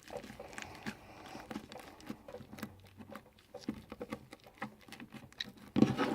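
Homemade fluffy slime made from glue and shaving foam being kneaded and stretched by hand, giving an irregular run of small wet clicks and crackles.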